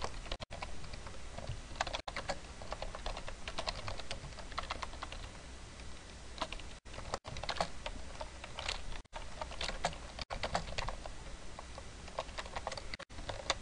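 Typing on a computer keyboard: a quick, irregular run of key clicks, broken by a few brief moments of silence.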